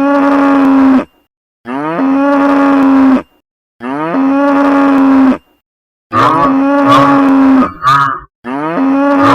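Cow mooing over and over: five long moos with a gap of about half a second between them. Each moo rises at the start and then holds a steady pitch, and the first three sound identical, like one recorded moo looped. A short extra moo comes near the end.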